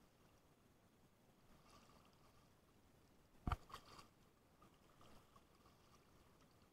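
Near silence, broken about three and a half seconds in by one sharp knock followed by a few quick lighter clicks.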